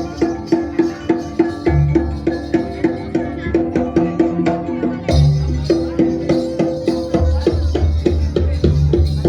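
Jaranan gamelan music: pitched metal gong-chime strokes keep a steady beat of about three a second, with deep gong booms twice and a run of quick low drum strokes near the end.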